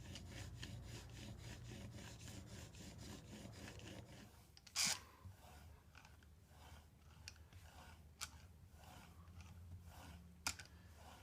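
Chisel in a honing jig rubbed back and forth on a sharpening stone, about three strokes a second, putting a micro bevel on the edge; the strokes stop about four seconds in. A sharp knock follows, then a few lighter clicks.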